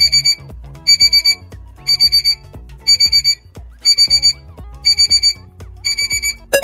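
Electronic alarm-clock beeping: a group of about four quick, high beeps once a second, seven times, over quiet background music, marking the thinking time before a quiz answer is revealed.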